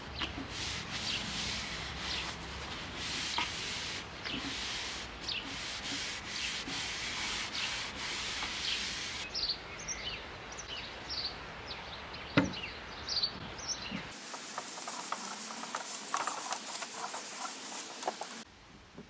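Repeated rubbing strokes across a bare timber dresser top, about two or three a second, with birds chirping. There is a single sharp knock a little past the middle, and a hissier stretch of rubbing near the end.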